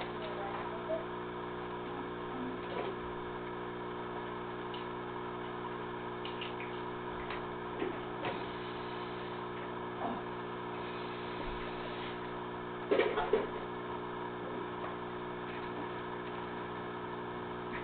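Steady hum of an aquarium's filter pump, with a few faint short knocks and a brief louder cluster of sound about thirteen seconds in.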